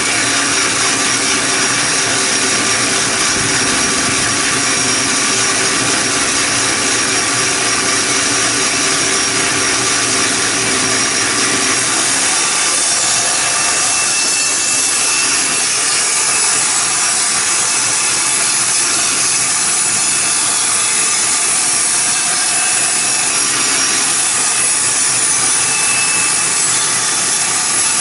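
Band saw running with a freshly hand-sharpened blade, a steady loud sawing noise. It has a funny noise that the owner puts down to uneven sharpening of the blade's teeth. Its lower hum thins out about halfway through.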